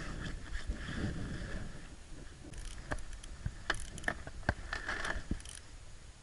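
Handling noise from fishing gear being picked up: rustling, then a run of sharp clicks and taps from about two and a half to five and a half seconds in.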